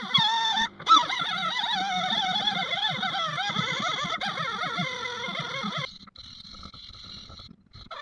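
Cordless rotary tool spinning a wire wheel against the cast-iron body of a Stanley No. 45 plane to scrub it clean, its motor whine wavering up and down in pitch as the wheel loads against the metal. About six seconds in it drops suddenly to a quieter, steady high whine.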